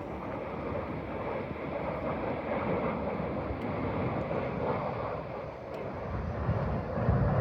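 Distant airplane engine drone, steady, with wind rumbling on the microphone; the low rumble grows louder near the end.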